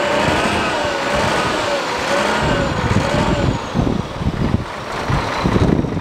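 Dump truck's diesel engine running while its bed is tipped up and the load of soil slides out, with a pitched whine that wavers up and down for the first half, giving way to irregular low rumbles.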